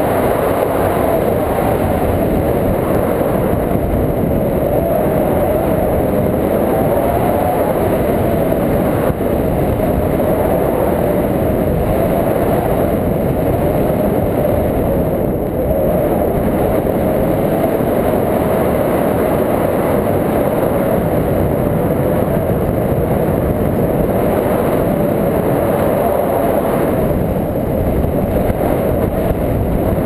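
Wind from a tandem paraglider's airspeed rushing over the camera microphone in flight: a loud, steady rush with a slowly wavering hum.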